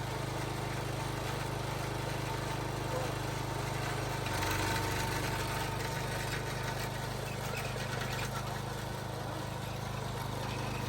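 Engine of a post-hole auger running steadily, briefly louder about four seconds in.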